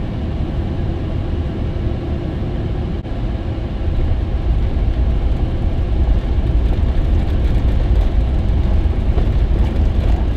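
Cabin noise of a moving SUV: a steady low rumble of engine and tyres on the road, which grows louder about four seconds in.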